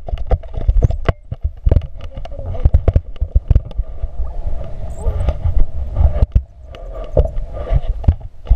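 Wind rumbling on a handheld camera's microphone, with many irregular knocks and thumps, during a tandem paraglider's running takeoff on a dirt slope.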